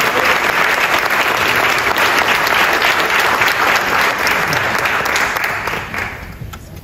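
Audience applauding, a dense, steady clapping that dies away about six seconds in.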